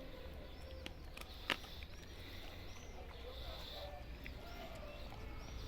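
Faint bird chirps over a low steady hum, with one sharp click about a second and a half in.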